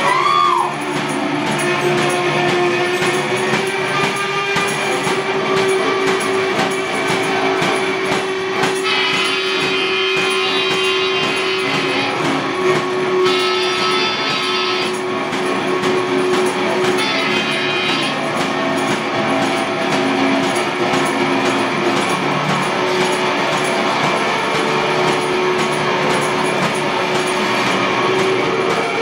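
Live blues from a one-man band: guitar over a steady droning note, with a stand-mounted tambourine keeping time. Three short passages of bright harmonica chords come in around the middle.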